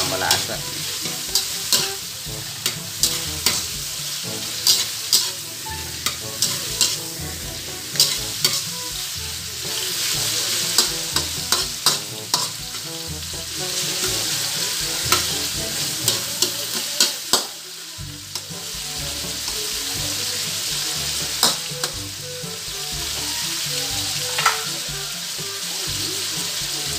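Cubed pork sizzling as it fries in oil in a metal wok, with the clicks and scrapes of a metal slotted spatula stirring it against the pan. The spatula strokes are frequent for the first two-thirds, then only a couple, leaving the steady sizzle.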